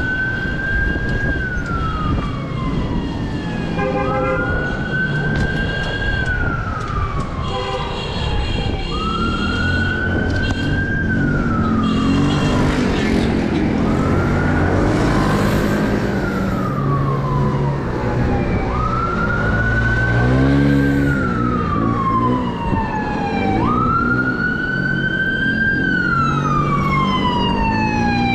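A siren wailing in slow, even cycles: each rises quickly, holds briefly and then slides down, repeating about every five seconds, over steady wind and road noise.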